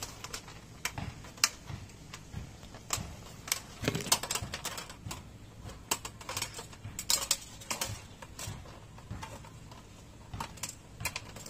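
Irregular light clicks and taps from wires and small plastic lampholder parts being handled against a sheet-metal fluorescent light fixture housing.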